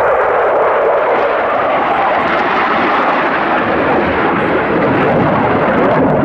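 Saab JAS 39 Gripen fighter jet's engine, loud and steady at high power as the jet flies its display, dropping away sharply just at the end.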